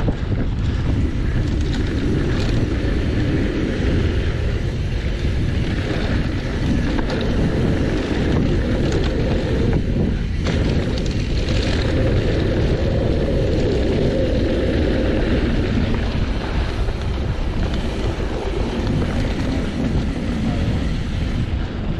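Wind rushing over the camera microphone and knobby tyres rolling over a dirt trail as a mountain bike descends at speed, a steady loud rush with a few brief knocks from bumps.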